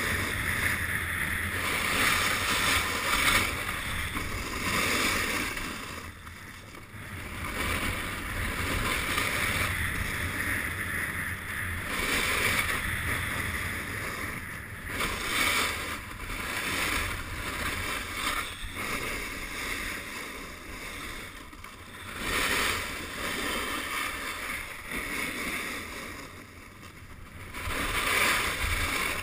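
Snowboard edge scraping and hissing over hard-packed snow, rising and falling every few seconds as the rider descends, with wind rumbling on the camera microphone.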